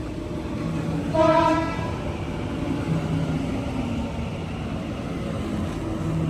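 Sydney Trains Waratah electric train pulling into the platform with a steady low motor hum, and a short horn blast about a second in.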